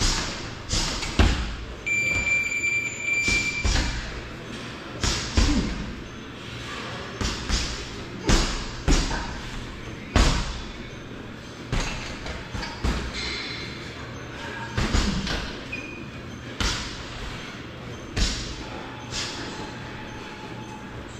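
Gloved punches and kicks landing on a hanging heavy bag: a run of irregular thuds, some in quick pairs and bursts, others a second or two apart.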